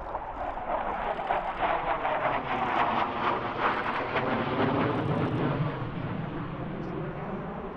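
F-16 fighter jet's engine noise sweeping past, swelling for the first few seconds and then dropping in pitch and fading as the jet pulls away.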